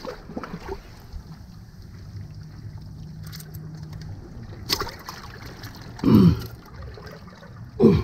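Sea water sloshing and trickling among jetty rocks, with a low steady hum for about two seconds in the middle. There is a sharp knock a little before five seconds in, and two short vocal sounds falling in pitch, near six and eight seconds, are the loudest.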